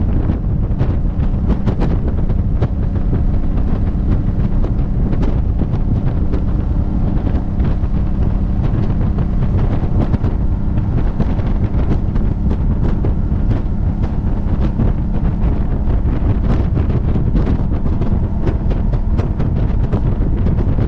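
Wind buffeting the camera microphone on a Honda Africa Twin motorcycle riding at highway speed. It makes a loud, steady low rumble with many small crackles, and the motorcycle and road noise lie beneath it.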